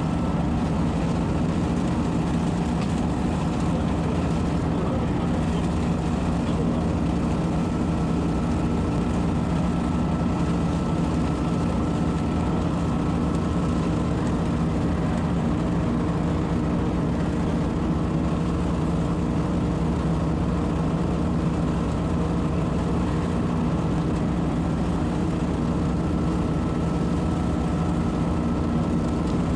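Engine of a leaf vacuum-mulcher running at a steady, constant speed: one even engine drone with a thin steady whine above it.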